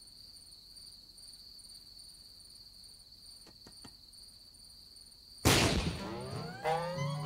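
Insects trilling steadily at a high pitch. About five and a half seconds in, a loud music cue starts abruptly with falling tones.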